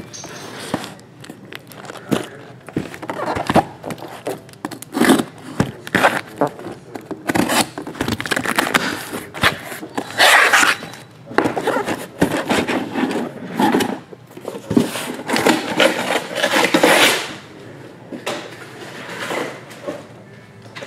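Cardboard shipping case being opened by hand and boxed trading-card packs slid out and stacked: irregular scraping, rubbing and rustling of cardboard with sharp knocks. The sounds are loudest in a few long scrapes midway and settle down near the end.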